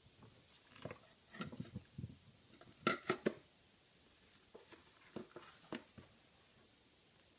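Fingers rummaging in a clogged garbage disposal: scattered small squelches and clicks, the loudest about three seconds in, with quiet stretches between.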